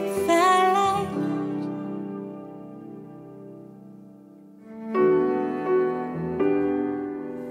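Piano and cello ballad accompaniment. A sung note ends about a second in, then the held chord dies away to quiet. About five seconds in, piano and cello come back in with a new phrase.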